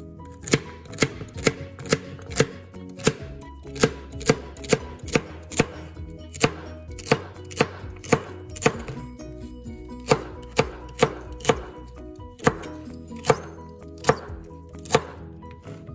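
Chef's knife chopping celery stalks on a plastic cutting board: sharp knocks of the blade striking the board, about two a second, with a few short pauses.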